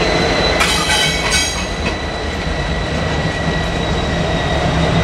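Norfolk Southern freight train with EMD SD70M-2 diesel locomotives leading, moving slowly: a steady low engine rumble with a thin steady high whine over it. About a second in there is a brief high squeal, like wheels or brakes squealing on the rails.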